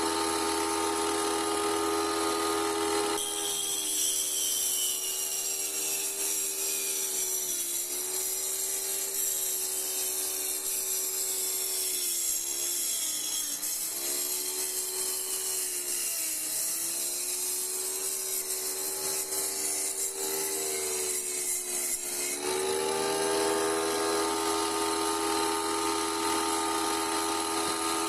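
Electric wet saw running, its blade cutting through a glass bottle: a steady motor whine that dips in pitch again and again as the glass is pushed into the blade, with a gritty hiss from the cut. About three seconds in the cutting starts, and near the end the saw goes back to running free at a steady pitch.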